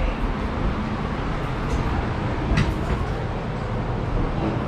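Steady low rumble and hiss of a boat underway, with two brief knocks about two and a half seconds in.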